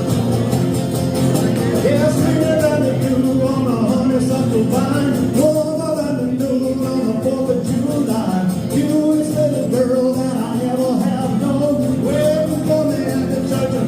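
Live acoustic music: guitar strummed in a steady, driving rhythm with a bending melody line over it, played as an up-tempo country song.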